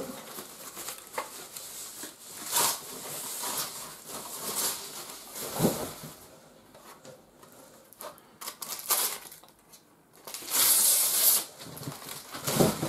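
Plastic wrapping crinkling and rustling as a tall floor-standing speaker is slid out of its plastic bag and its protective film is pulled off, in irregular bursts, with a louder, longer crinkle about ten seconds in.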